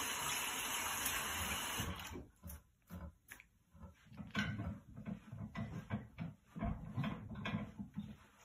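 Tap water runs steadily over hands into a washbasin. About two seconds in it falls away to irregular short rubbing and rustling as the hands are dried on a towel.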